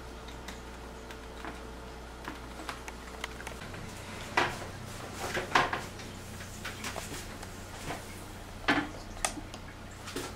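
Knocks and clatters of a plastic toilet seat and lid being handled and lowered onto a ceramic toilet bowl: light clicks throughout, with a few sharper knocks about four and a half, five and a half and nine seconds in.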